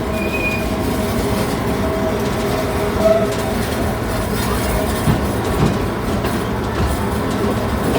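Theme-park passenger train rolling along its track, heard from on board: a steady rumble with a faint steady whine and a few short knocks about halfway through.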